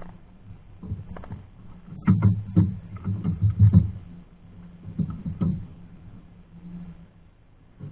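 Irregular knocks and rattling clicks in a small fishing boat over a low rumble. They are densest from about two to four seconds in, with a few more around five seconds.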